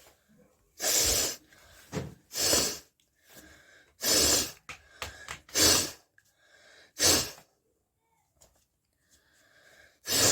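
A person sneezing repeatedly: six loud, short bursts about a second and a half apart, with a longer pause before the last, and faint breathing in between.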